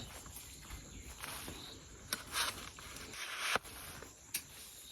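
Footsteps and rustling through plants outdoors, with a few sharp snaps or clicks in the second half.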